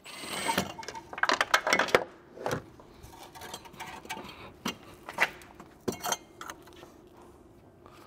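Scattered metal clanks and knocks, thickest in the first two seconds, as a front strut assembly with its coil spring is freed from its top mount and pulled out of the wheel well.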